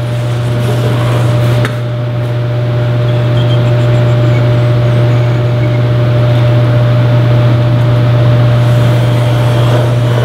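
A loud, steady machine hum: a strong low drone with a steady higher tone above it, unchanging throughout.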